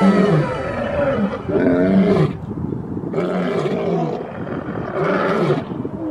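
Two male lions roaring together: a run of short roars, about one a second.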